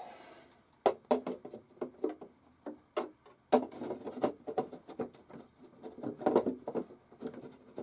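Plastic roof panel being lowered and fitted onto a plastic RC truck body by hand: irregular clicks, light knocks and short rubbing scrapes as the panel is seated.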